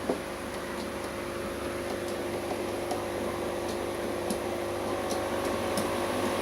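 Steady hum of an aquarium pump, holding two even tones over a hiss, with a few faint scattered ticks.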